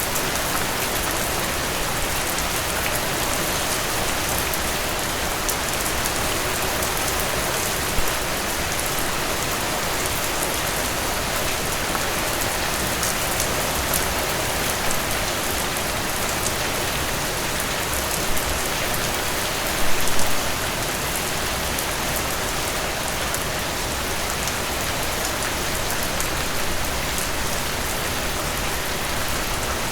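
Steady rain falling, a dense even hiss of drops with a few louder drops standing out, a short cluster of them about twenty seconds in.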